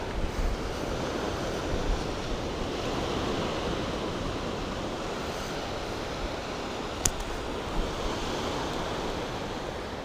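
Ocean surf washing onto the beach, a steady rush of noise, with one small sharp click about seven seconds in.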